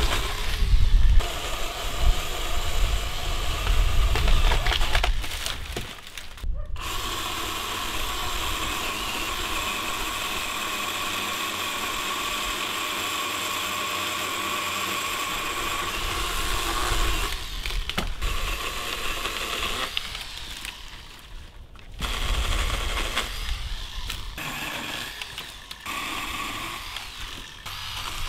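Greenworks G40PSF battery pole saw's electric motor and chain running steadily as it cuts through dry walnut branches. The sound comes in several stretches broken by sudden cuts, the longest a steady whine lasting about ten seconds.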